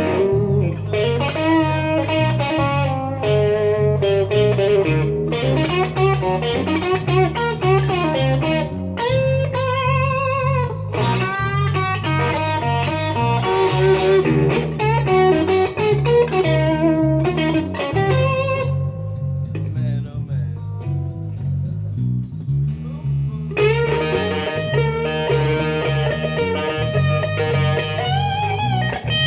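Live blues-rock instrumental: electric guitar playing lead lines, with some held, wavering notes, over a steady repeating electric bass groove. About two-thirds through, the upper part thins out, then a fuller, brighter guitar part comes back in.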